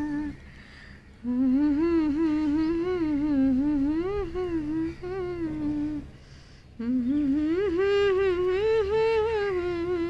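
A woman humming a slow wordless melody in two long phrases, the second with a wavering vibrato near the end.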